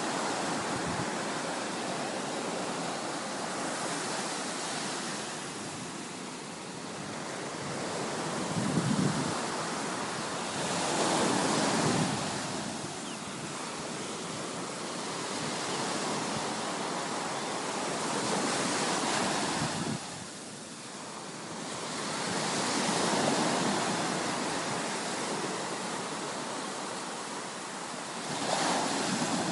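Ocean surf breaking on a beach, its noise swelling and falling as each wave comes in every few seconds.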